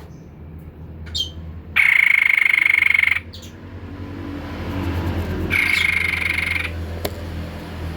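White-breasted babbler singing: a short note, then two long, steady, rapidly trilled high notes, each a little over a second, a few seconds apart, over a low steady hum.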